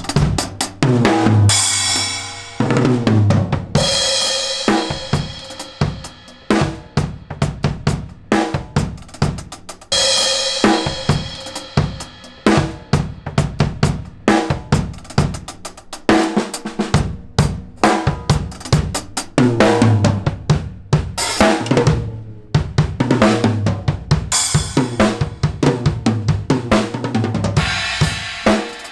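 Acoustic drum kit being played: a steady run of kick and snare strokes with hi-hat, and cymbal crashes ringing out several times, the longest washes about a third of the way in and again near the end.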